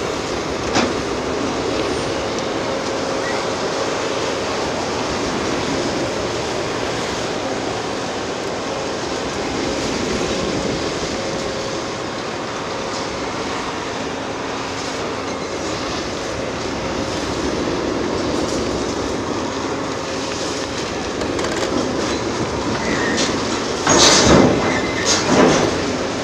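Caterpillar 390F L excavator running under load while its Hydraram HCC-95V concrete crusher works, a steady heavy machine noise with a faint hydraulic whine. There is a sharp crack about a second in. Near the end, two louder bursts of concrete cracking and crashing come about a second apart.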